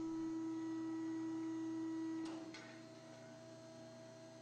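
Electric rebar bending machine running with a steady motor hum as its turntable bends a bar, then a click a little over two seconds in as it stops, leaving a fainter hum.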